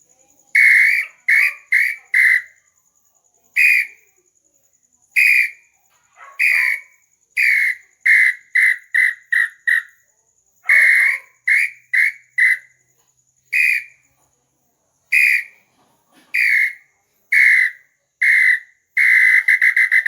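Handmade hunting bird-call whistle (pio) being blown: clear whistled notes all at about the same pitch, some single and drawn out, some in quick runs of four or five short toots, ending in a long trilled note.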